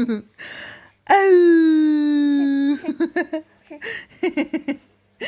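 Eight-week-old baby cooing: one long drawn-out vocal call that slowly falls in pitch, after a breathy sound, then a run of short choppy vocal sounds.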